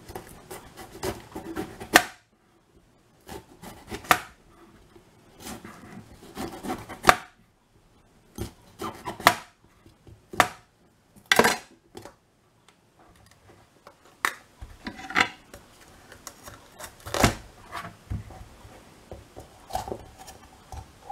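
Kitchen knife cutting into green bell peppers on a cutting board, coring out the stems and seeds: irregular crunches of the blade through the pepper flesh and knocks against the board, with a few louder knocks.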